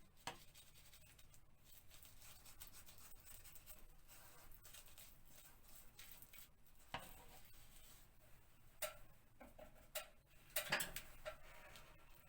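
Faint scratching and ticking of a paste brush working overlap adhesive in behind lifted wallpaper edges, with a few sharper taps and clicks now and then.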